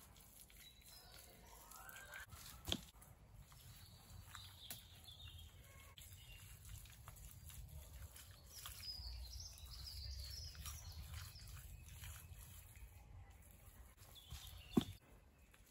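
Faint outdoor woodland ambience with a low rumble and a few short, high bird chirps, broken by a sharp knock about two and a half seconds in and a louder one near the end.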